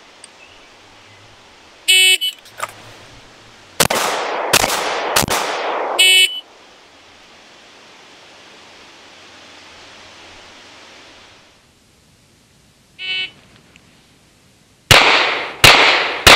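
Electronic timer beep, then three 9mm shots from a CZ 75 pistol fired about two-thirds of a second apart, the first a double-action pull, then a second beep marking the end of the four-second time limit. After a pause, another beep and three more shots.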